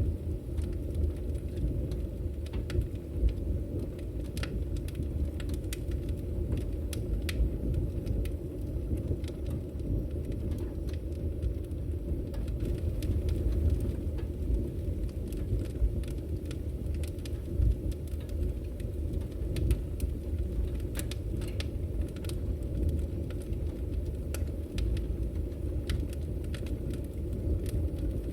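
Chimney fire burning: a steady low rumble with frequent sharp crackles and pops scattered throughout.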